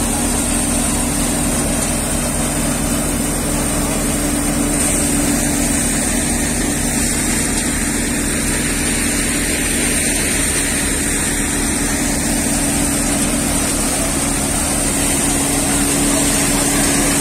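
A multi-crop paddy thresher and the engine driving it, running steadily as paddy bundles are fed in. It makes a loud, even drone with a steady hum and a high whine above it.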